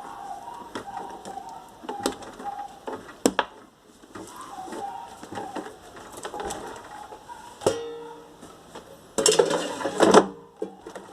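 Scattered clicks and knocks of an air fryer's parts being handled and fitted back together, with a louder scraping clatter about nine seconds in.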